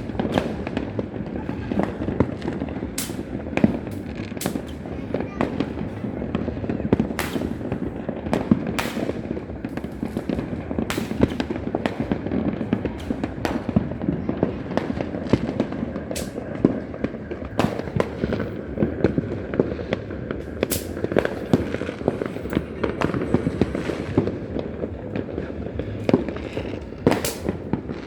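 Firecrackers and fireworks going off nonstop: a dense, continuous crackle of many distant pops, with sharp nearer bangs every second or so.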